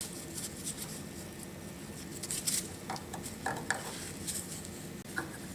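Hand tools on the metal drivetrain parts of an old cast-iron planer: scattered light metal clinks, taps and scraping, a few of them briefly ringing, over a steady low hum.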